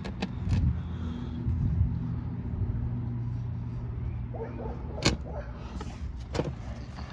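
Sharp clicks and knocks of an oil filter and tools being handled as the filter is worked loose by hand, the loudest about five seconds in. Under them runs a steady low mechanical hum.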